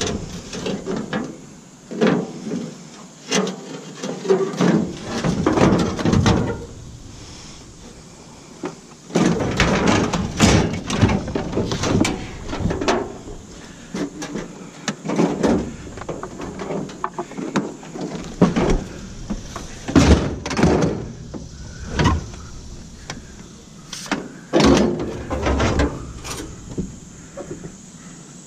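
Scrap metal being handled and loaded by hand: a long run of irregular clanks, knocks and scrapes, with a lull about seven seconds in.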